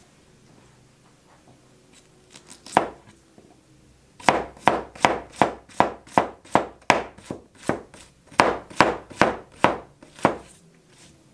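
Restored steel cleaver chopping a cucumber into slices, each stroke a sharp knock as the blade goes through and hits the surface beneath. There is one cut about three seconds in, then a quick even run of about fifteen chops, roughly two to three a second.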